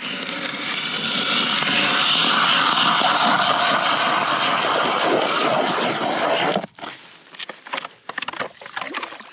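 Ice auger boring through river ice, a steady grinding noise that stops suddenly about six and a half seconds in, followed by a few light knocks and scrapes.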